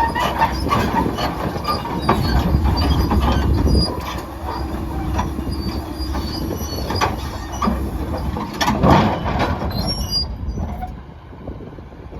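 Komatsu D65 crawler bulldozer running, its diesel engine rumbling while its steel tracks clank and squeal as it crawls. The sound drops away sharply near the end.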